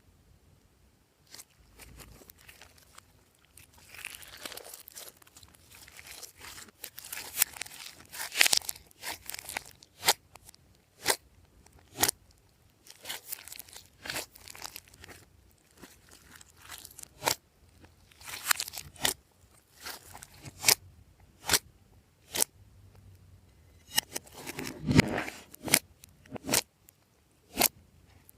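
Glossy slime being kneaded and stretched by hand, giving irregular sharp clicking pops of trapped air with short squishy crackles between them. The pops come thicker and louder near the end.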